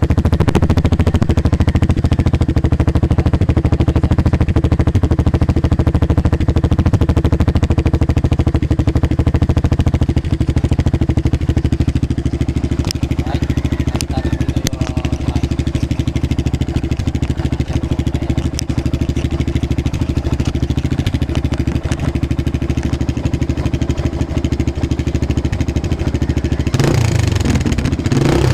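Kawasaki Barako II motorcycle running steadily through a bullet-type aftermarket exhaust with its silencer insert fitted, briefly louder near the end.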